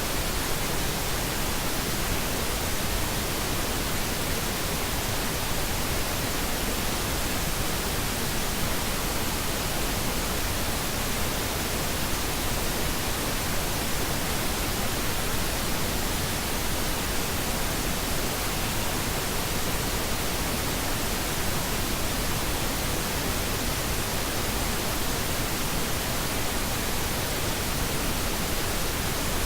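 Steady pink noise: an even, unchanging hiss across all pitches, with no tones or other events.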